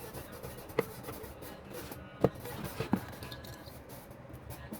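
Three sharp clicks over steady low background noise, the loudest about two seconds in, as small parts and tools are handled while a steam iron is worked on.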